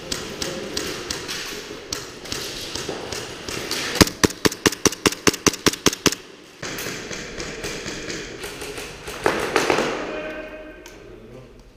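Gas blowback airsoft pistol in a CAA RONI carbine kit firing a fast string of about eleven sharp shots, roughly five a second, a few seconds in. Quieter clicks and pops of other shots come before it and again near the end.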